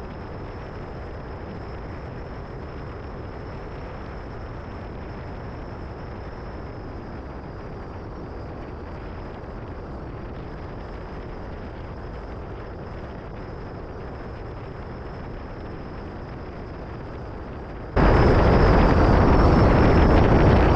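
Bass boat running at speed on open water: a steady rumble of outboard motor, hull and wind. About 18 seconds in, the sound jumps suddenly much louder and brighter, with heavy wind buffeting on the microphone.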